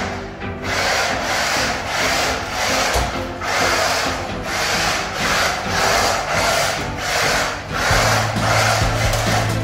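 Background music with an even swishing beat, about one and a half beats a second, over held low bass notes that step in pitch.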